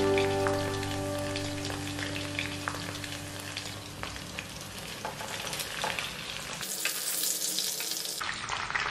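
Boneless chicken pieces deep-frying in hot oil: a steady sizzle with scattered small crackles. A held musical chord fades out over the first couple of seconds.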